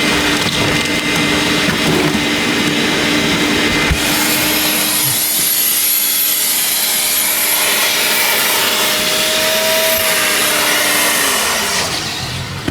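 Vacuum cleaner running with a steady hum while cleaning a car's interior. Near the end its pitch falls and it winds down.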